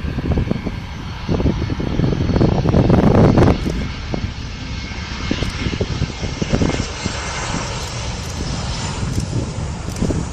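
Airliner engines as a plane passes the runway: a continuous rushing noise, with a higher hiss coming up in the second half.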